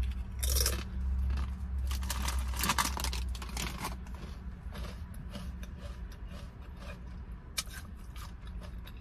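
Crisp chips being bitten and chewed close to the mouth: loud crackly crunches in the first few seconds, then quieter, scattered chewing crunches. A steady low hum runs underneath.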